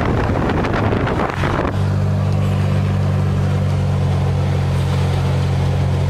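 Wind buffeting the microphone held out of a moving car's window, cutting off abruptly about a second and a half in. A steady low drone of the car driving, heard from inside the closed cabin, follows.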